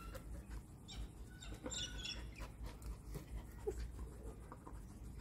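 Australian Shepherd dog panting faintly while it searches, with a few short bird chirps in the background.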